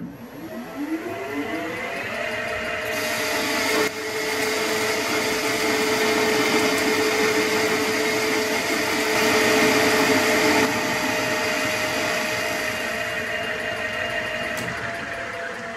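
Metal lathe spinning up with a rising whine over the first couple of seconds, then running steadily while taking a deep roughing cut on a metal bar. The cutting noise is loudest from about three seconds in to about eleven seconds.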